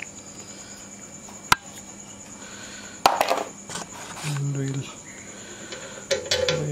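Small metal parts and tools being handled while a fuel petcock is fitted to a motorcycle fuel tank: a single sharp click about a second and a half in, then a loud burst of metallic clattering and knocking about three seconds in, with more light clicks near the end. A steady high insect trill runs underneath.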